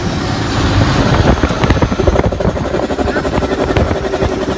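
Mack RD truck's diesel engine running loud with a rapid, even pulsing. A steadier tone joins in about two seconds in.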